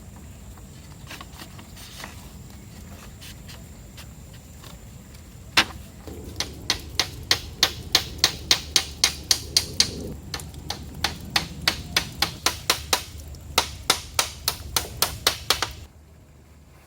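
Repeated hammering strikes on wood, about three a second, in three runs with short pauses, during shelter building. The strikes stop suddenly near the end.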